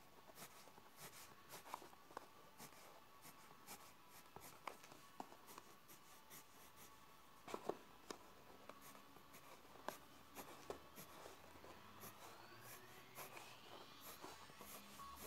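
Coloured pencil scratching on paper in many quick, faint shading strokes.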